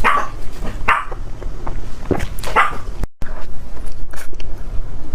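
A dog barking: three short barks about a second apart, then the sound cuts off abruptly.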